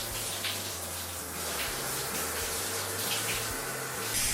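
Running water pouring steadily like a tap, rinsing the toy dinosaurs in the bath.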